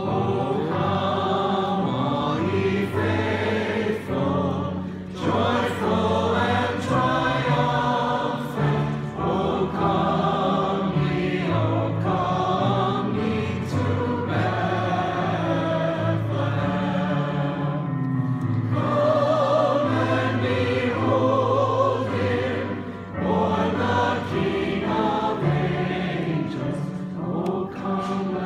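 Mixed choir of men and women singing a Christmas carol in harmony, with long held notes.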